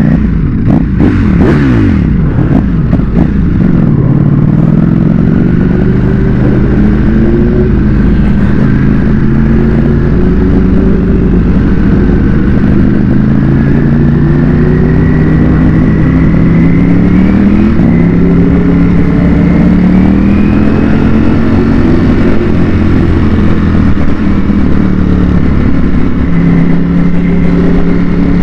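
Ducati Panigale V4 superbike with a Termignoni exhaust, heard from the rider's seat. In the first couple of seconds the engine note falls off the throttle with a cluster of exhaust cracks and pops. It then runs at low speed through traffic, with a few gentle rises in pitch as the throttle is opened.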